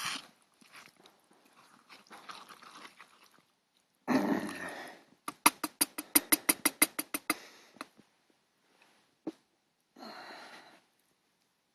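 A spoon stirring curry in a metal pot on a hobo stove: handling and scraping noises, then a quick even run of about a dozen clinks over two seconds, with one more single knock later.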